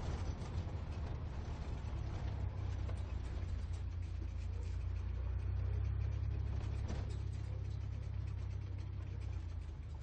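Sports car driving, a deep, steady engine rumble that swells a little around the middle.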